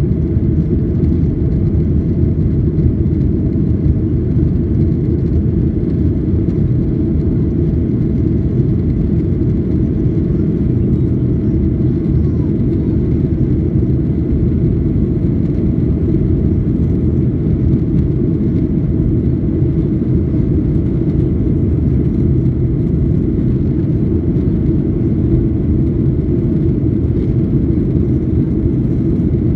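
Steady low rumble inside a Boeing 737-800's cabin in flight: the CFM56-7B turbofan engines and the rush of air past the fuselage, heard from a window seat by the wing.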